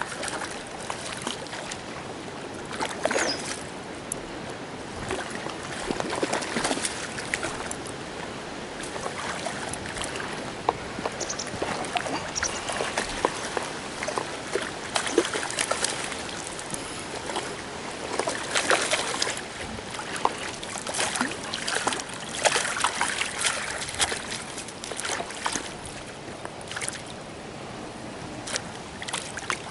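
Water splashing and sloshing in irregular bursts as a hooked trout thrashes at the surface near the bank and is brought into a landing net.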